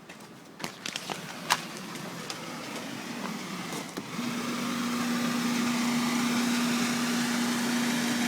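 A few clicks and knocks, then about four seconds in a bubble generator's motor starts running with a steady hum and a rushing noise.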